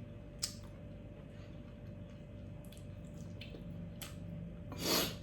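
Eating sounds: quiet wet chewing with a couple of sharp clicks, and a louder short noisy burst near the end.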